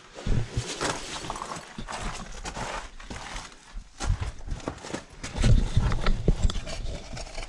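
Footsteps, scuffs and clothing scraping against rock as a hiker squeezes through a narrow rock crevice, with irregular knocks and heavy low thumps of the camera rubbing and bumping, strongest just after the start and again about two thirds of the way in.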